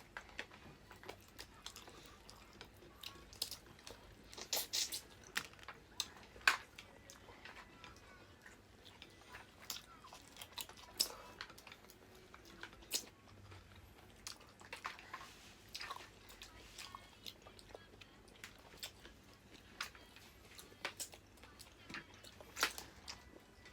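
People chewing and biting into seafood, with scattered short crunches, clicks and wet smacks at an irregular pace.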